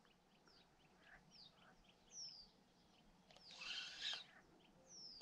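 Near silence with faint birdsong: soft chirps and a few short downward-sliding whistles. A brief soft rustle comes about three and a half seconds in.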